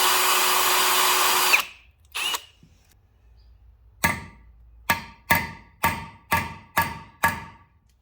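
Electric drill running at full speed, deepening a hole in a broken bellhousing bolt in a small-block Chevy 350 block, winding down about a second and a half in, followed by a brief second burst. Then seven sharp hammer strikes with a ringing metallic tone, tapping a screw extractor into the drilled bolt.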